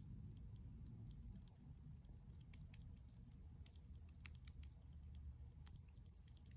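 Faint chewing: quick, crisp little clicks and crunches of teeth on food, irregular and scattered throughout, over a low steady background hum.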